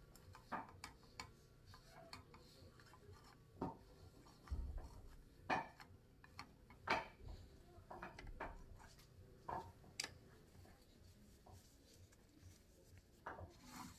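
Wooden chopsticks clicking and scraping against a small nonstick frying pan, a dozen or so light irregular taps as kitchen paper held in the chopsticks wipes the pan's rim.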